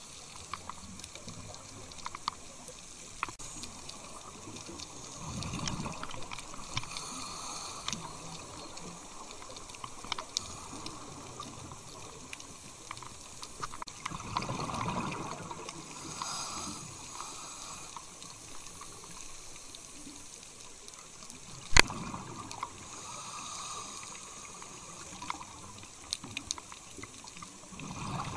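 Underwater sound of a scuba dive: a diver's exhaled bubbles gurgle in swells about every nine seconds over a steady crackle of faint clicks. One sharp click a little past the middle is the loudest sound.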